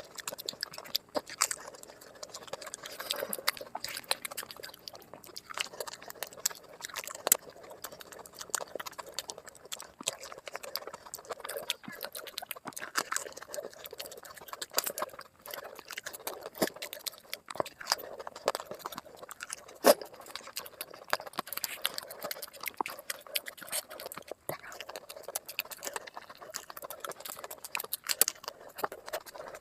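Eating sounds sped up five times: fast, dense chewing and crunching with many short wet clicks and smacks.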